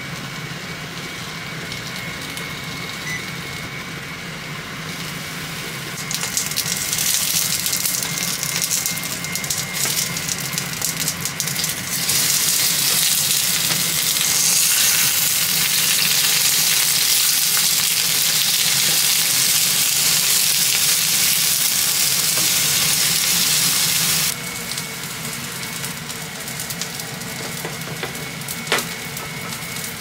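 Onions frying in a pan: sizzling and crackling that grows louder about six seconds in, becomes a loud, even hiss from about twelve seconds, then cuts off suddenly about two-thirds of the way through.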